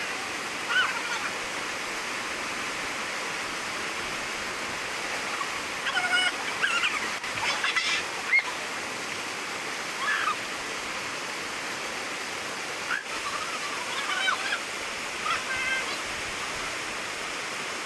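Steady rush of a small waterfall pouring over rock into a pool, with several short shouts and laughs from people playing in it scattered through the middle.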